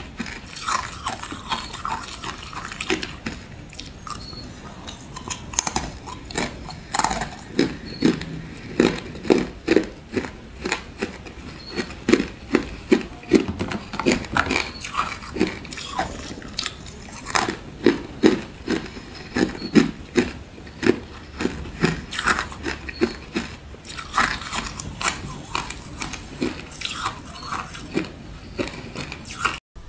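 Thin sheet ice being bitten and chewed: a steady run of crisp crunches, about two a second.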